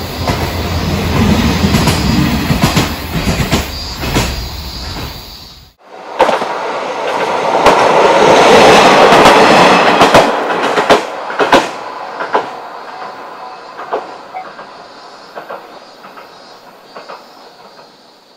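KiHa 40-series diesel railcar passing: diesel engine rumble and wheels clacking over rail joints. The sound cuts off abruptly about six seconds in, then a second pass swells to its loudest around nine seconds with sharp wheel clicks and fades away.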